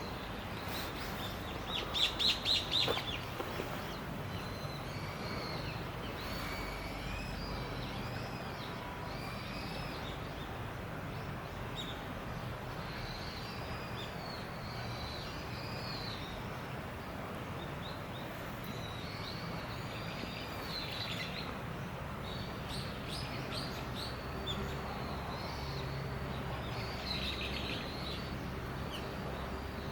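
Small birds chirping on and off over a steady outdoor background hum, with a quick loud run of chirps about two seconds in.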